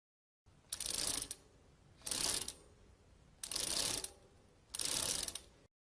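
Bicycle freewheel ratcheting in four short bursts of rapid clicking, about a second and a half apart.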